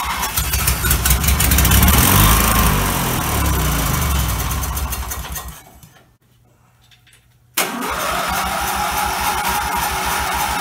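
1990 Murray lawn tractor's twin-cylinder engine being cranked and catching roughly: it picks up speed and drops back about two seconds in, then dies away around five seconds. After a short pause it is cranked again and runs on. It is struggling to run, a sign the owner later puts down to fouled spark plugs, one of them loose.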